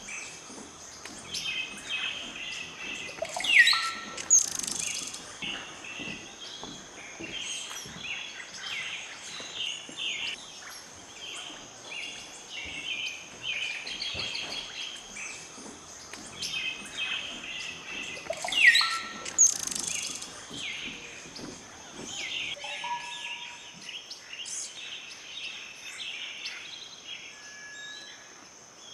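Forest birds chirping and calling in a busy chorus, over a steady high-pitched tone. A loud rising whistled call stands out twice, about fifteen seconds apart.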